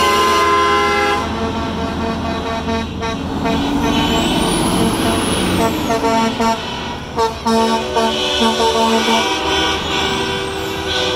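Semi-truck air horns sounding as the trucks roll past: long blasts at first, then a run of short toots about seven to nine seconds in, over the low running of the trucks' engines.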